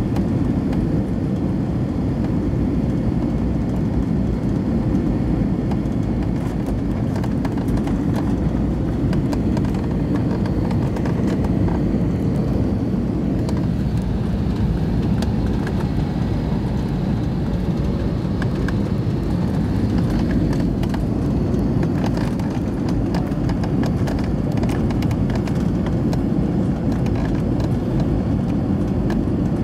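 Cabin noise inside an Airbus A320neo on final approach: a loud, steady rumble of airflow and engines, with scattered rattles and knocks in the second half.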